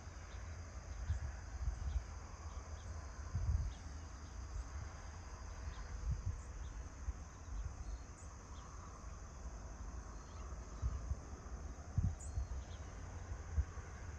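Steady, high-pitched chorus of insects chirping at dawn in a rural field. Low gusts of wind buffet the microphone and are the loudest sound.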